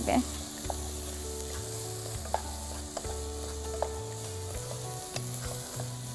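Thick tamarind-and-chilli masala for koi fish sizzling in a pot while it is stirred with a wooden spatula, with a few light clicks along the way.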